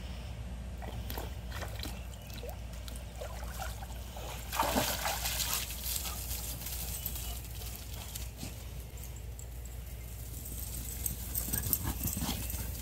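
Swimming-pool water sloshing and trickling around a dog standing in the shallow end at the pool steps, with a louder rush of noise about four and a half seconds in.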